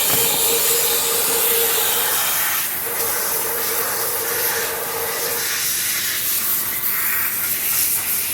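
Die-casting machine hissing steadily and loudly, with a steady hum for about the first five seconds that breaks off briefly near two seconds in.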